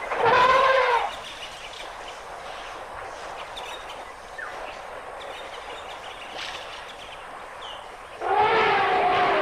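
African elephant trumpeting: a brief call right at the start and a longer call beginning about eight seconds in, with a steady outdoor hiss between them.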